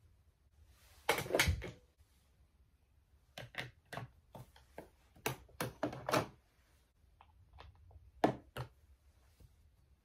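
Makeup tools and containers being put down, picked up and opened on a vanity table: a loud clattering knock about a second in, a run of sharp clicks and knocks in the middle, and two more clicks near the end.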